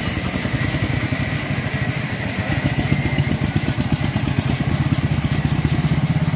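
A small engine running slowly with a steady, even putter, a little louder in the second half.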